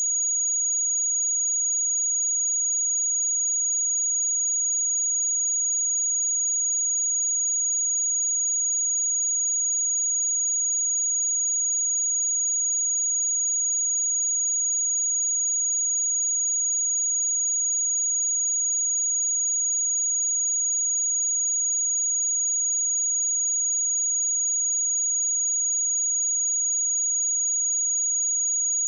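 A pure 6738 Hz sine-wave test tone held steady at one pitch and level: a single high-pitched whistle-like tone.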